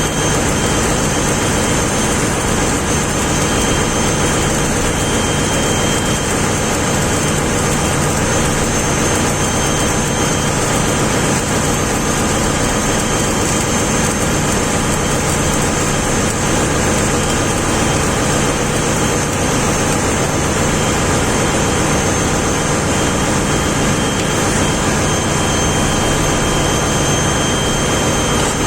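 Ship's machinery running: a loud, steady drone with thin, constant high whines, typical of an engine room on board.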